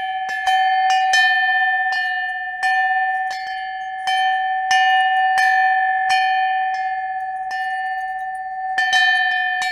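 A single bell struck over and over at one pitch, roughly every two-thirds of a second, each stroke ringing on into the next.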